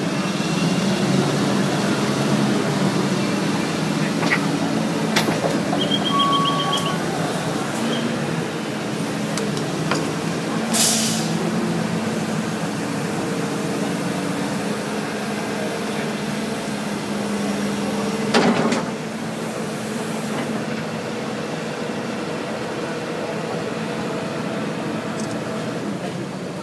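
Heavy diesel engine running steadily. A short high beeping comes about six seconds in, a brief hiss about eleven seconds in, and a sharp knock about eighteen seconds in.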